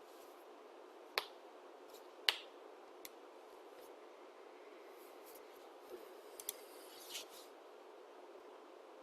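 A handful of sharp computer mouse clicks over a faint steady hiss: two louder clicks about a second apart near the start, a few fainter ones later, including a quick pair.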